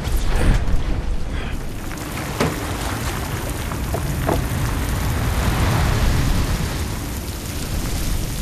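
Storm at sea on a small sailboat: heavy rain and wind with waves hitting the boat, a steady loud wash of noise. A few sharp knocks sound in the first half.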